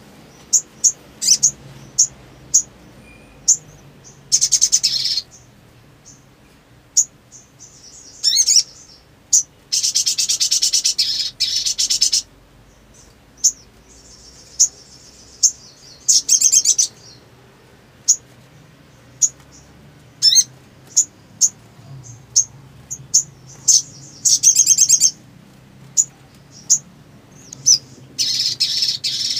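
A sogon (sogok ontong), a small nectar-feeding songbird, calling in full song: sharp, very high single chirps repeated at irregular intervals, broken by half a dozen rapid trilled chattering phrases, the longest lasting about two seconds.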